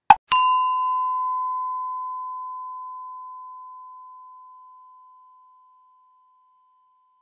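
A sharp click, then a single clear bell-like tone struck once, ringing and slowly fading away over about five seconds.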